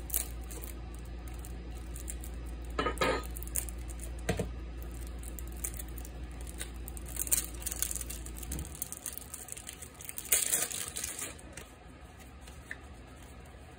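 A table knife slitting the seal on a cardboard playing-card box, then the box being handled and opened: scattered taps, scrapes and tearing of paper and card, loudest about three seconds in and again near the end. A steady low hum underneath stops a little over halfway through.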